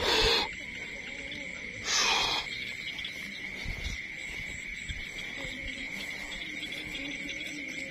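Insects chirring in a steady, high-pitched chorus on one note, with two short, loud swishing noises, one right at the start and one about two seconds in.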